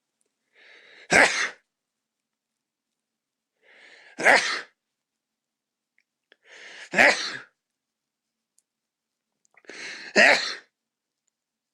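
A man sneezing four times, about three seconds apart, each sneeze an induced one: a short breathy intake, then a loud explosive burst.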